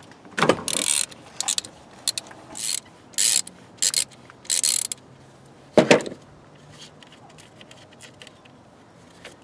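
Ratchet wrench with a 12 mm socket clicking in several short runs as the nut on a car battery terminal is backed off, then a single sharp knock a little before six seconds in.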